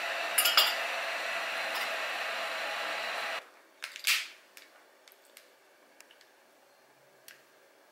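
A steady whirring noise with a couple of sharp clicks cuts off abruptly about three and a half seconds in. In the quiet that follows, a long-reach utility lighter is lit: one short burst of hiss about four seconds in, then a few faint clicks.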